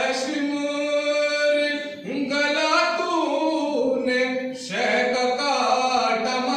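A man singing a devotional Urdu poem in praise of Imam Hussain, unaccompanied into a microphone, in long held, wavering phrases; he pauses for breath about two seconds in and again past the middle.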